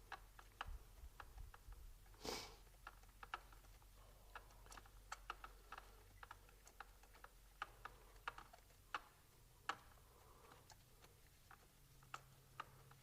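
Faint, irregular clicking and tapping of hand tools and parts being handled during spark plug work in the engine bay, with a short hiss about two seconds in.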